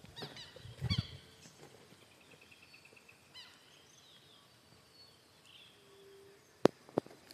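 Faint bird calls: short chirps and a quick run of repeated high notes over a quiet rural background. Two sharp clicks near the end.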